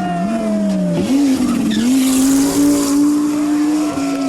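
Rally car engine at high revs, its pitch dipping and climbing twice through quick lifts and gear changes, then held high and steady before falling away near the end. A high hiss of tyres rises over it in the middle.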